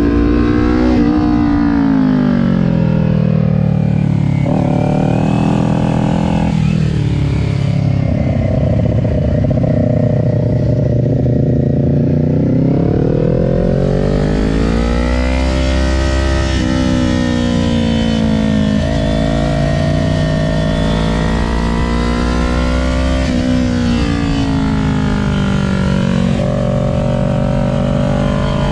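2020 Kawasaki Ninja 400's parallel-twin engine at track riding speed. The engine pitch climbs under throttle and falls off several times, with sudden drops at gear changes.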